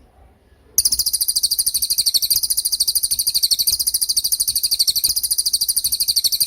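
A cililin songbird sings its 'tembakan' (rapid-fire) song: a very fast, high trill of evenly repeated notes, about a dozen a second. It starts abruptly about a second in and runs for nearly six seconds.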